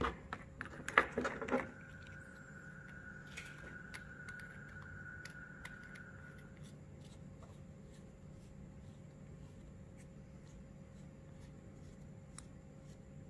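Tail cap being fitted and screwed onto a Supfire A2 metal LED flashlight: a quick run of clicks and knocks in the first couple of seconds, then faint scraping ticks as the cap is turned down on its threads.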